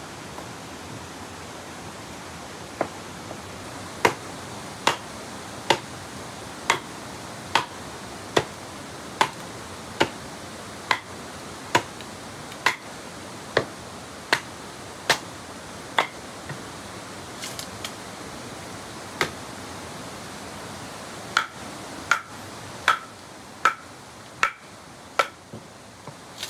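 Machete blade striking a wooden stick to split and shape it: evenly spaced sharp knocks a little faster than one a second, then after a pause a second run of strikes with a short ring to each, over a steady background hiss.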